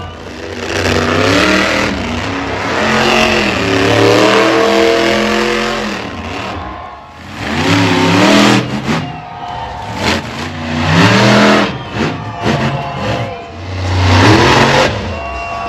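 Monster truck engines revving hard and dropping back several times as the trucks run at a ramp and jump over junk cars, with bursts of loud noise between the revs.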